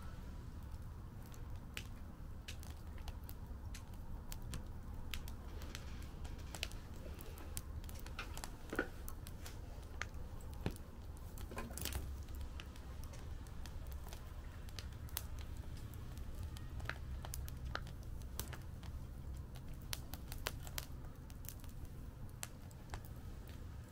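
Fire crackling in a fire pit: irregular sharp pops and snaps over a low steady rumble, with a couple of louder pops about nine and twelve seconds in.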